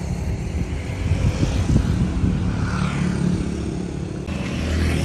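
A motor vehicle's engine running steadily, a low rumble under road and wind noise. The sound changes abruptly about four seconds in.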